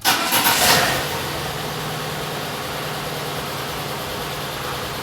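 VAZ-21140 (Lada Samara) car engine starting: it catches abruptly, runs loudest for about the first second, then settles into a steady idle.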